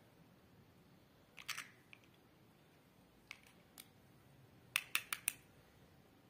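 Light clicks and taps of eggshell against eggshell and a small bowl as an egg is separated by hand, the white drained from the yolk: a few scattered clicks, then a quick run of four near the end.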